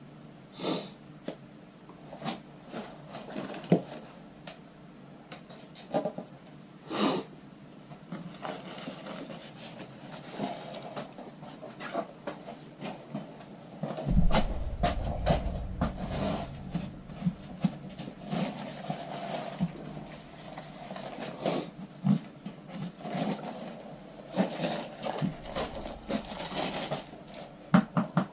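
Workbench handling noises as a golf iron is glued and assembled: irregular small clicks, taps and rubbing while a tip weight is pushed into the glued shaft tip and the head is fitted and wiped. A low rumble comes in about halfway through and again near the end.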